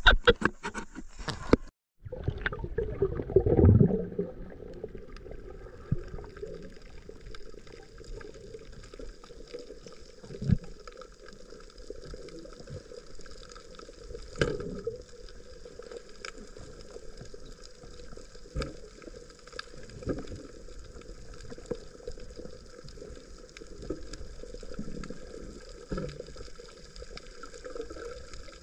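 Water gurgling and sloshing over a steady hum, with a louder surge about three seconds in and occasional short knocks.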